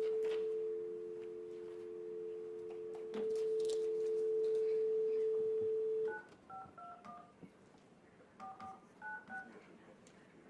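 Telephone dial tone, the steady two-note North American tone, which stops about six seconds in as a number is keyed: about eight short touch-tone (DTMF) beeps in two quick runs. The conference call line is being redialed to reestablish the connection.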